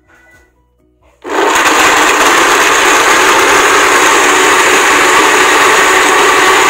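Countertop blender switching on about a second in and running steadily and loudly, puréeing a thick ube (purple yam) mixture.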